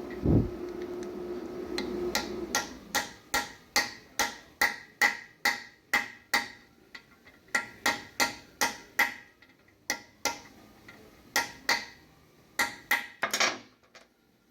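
A hammer tapping a socket to drive a press-in plug into the oil passage of a Pontiac V8 engine block. The sharp metallic taps come steadily, about two to three a second, each with a short ring, starting about two seconds in and pausing briefly a couple of times.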